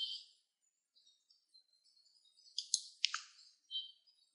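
Faint bird chirps: a few short, high calls in the second half, one of them sweeping downward.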